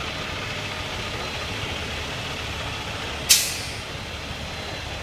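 Heavy truck's engine running with a steady low rumble, and a single sharp hiss of released air-brake air a little over three seconds in.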